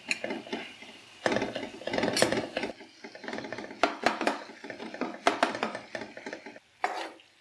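A spoon scraping and knocking against a karahi as thick masala is worked over and into chicken pieces, in irregular strokes that stop shortly before the end.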